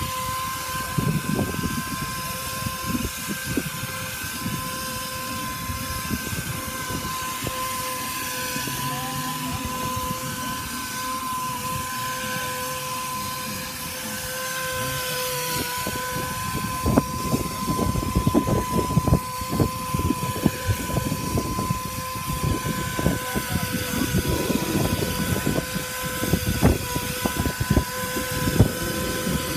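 Spray rig and fiberglass chopper gun running while cold fluid roofing emulsion is sprayed: a steady, even machine whine, over uneven low rumbling that gets heavier in the second half.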